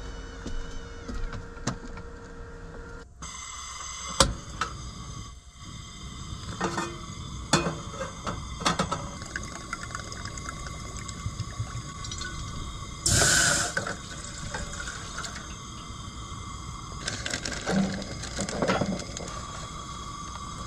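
Water poured from a mug into a camp cooking pot, with clinks and knocks of cookware and food packets handled on a wooden counter. One loud hissing rush comes about two thirds of the way through.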